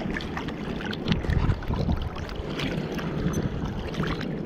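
Sea water sloshing and splashing around a bodyboard, heard from a GoPro at water level, with a low rumble of wind buffeting the camera's microphone.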